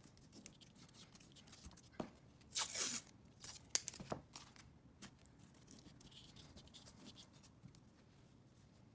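Masking tape pulled off the roll and torn, one noisy rip lasting about half a second a little over two seconds in. Around it are short taps and rustles of tape being handled and pressed down by hand.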